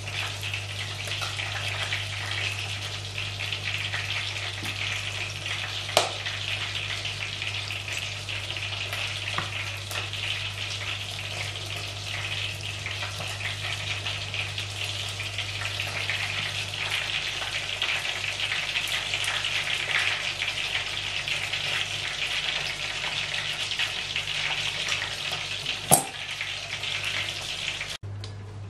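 Chicken-topped bread slices deep-frying in hot oil: a steady crackling sizzle, with a sharp clack about six seconds in and another near the end. The sizzle cuts off abruptly just before the end.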